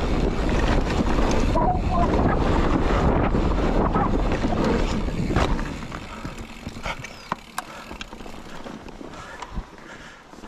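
Wind buffeting the camera microphone over the rumble of mountain bike tyres on a dirt trail during a fast descent. A little past halfway the wind rush drops away sharply, leaving quieter tyre noise on the dirt with scattered clicks and rattles from the bike.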